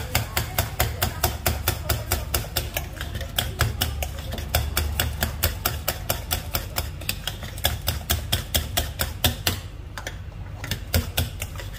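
A kitchen utensil knocking fast and evenly, about five strokes a second, over a low steady rumble; the knocking pauses briefly near the end, then comes back for a few strokes.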